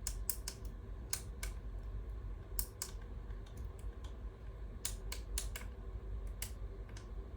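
Irregular sharp clicks and ticks, about two or three a second, over a low steady hum.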